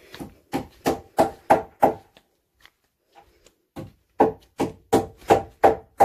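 Hammer driving nails into wooden boards: two runs of even blows, about three a second, with a pause of about two seconds between them.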